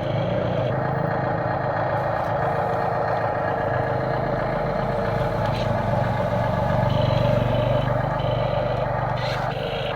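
Excavator's diesel engine running steadily under load.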